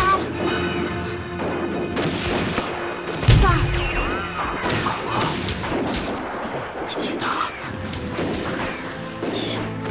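Battle sound effects of gunfire and explosions, with a heavy boom about three seconds in, under a dramatic music score.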